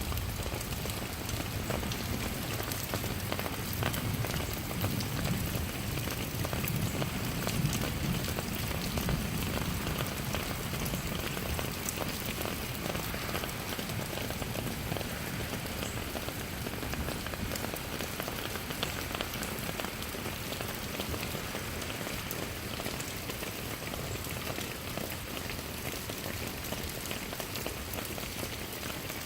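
Steady rain falling and pattering on surfaces, with many separate drops ticking through the hiss.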